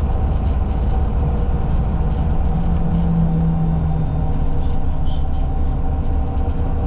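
Inside a city bus on the move: steady engine and road rumble with a constant mechanical hum. A lower drone swells briefly about three seconds in.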